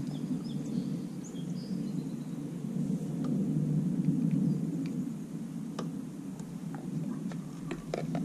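Steady low rumbling noise of wind on the microphone, with a few faint clicks of handling and brief faint bird chirps early on.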